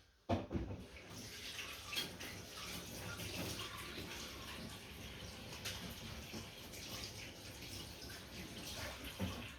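Water running steadily from a tap as a washing machine's drain pump filter is rinsed under it, with a few light knocks of the filter against the sink.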